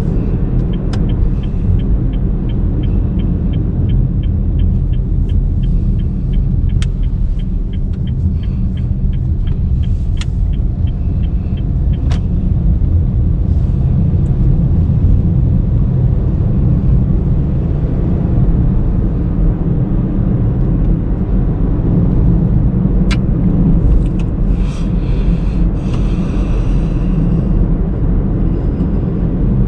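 Steady low road and engine rumble of a 2019 Honda Brio V CVT hatchback driving along. For the first dozen seconds a quick, regular light ticking runs over it, and near the end a short higher tone sounds.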